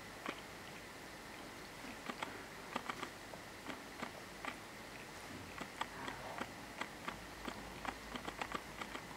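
Cat licking its raised front paw while grooming: a run of small, irregular clicks from its tongue, coming faster in the second half.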